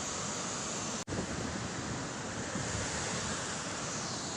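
Heavy floodwater released from a dam, pouring and churning below the spillway with a steady rushing noise that cuts out for an instant about a second in.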